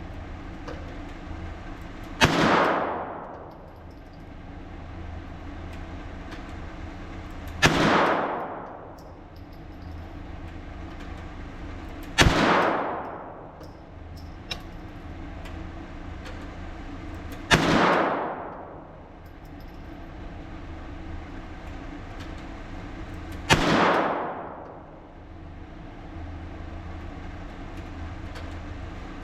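Five single shots from a .22 LR firearm firing Norma Match ammunition, spaced about four to six seconds apart, each followed by about a second of echo. A steady low hum runs underneath.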